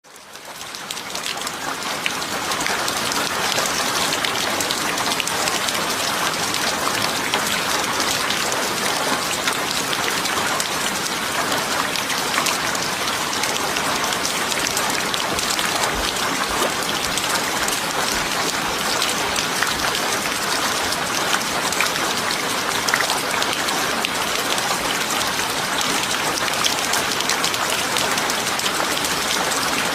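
Steady rain falling, a dense patter of many small drops hitting a surface. It fades in over the first two seconds, then holds even.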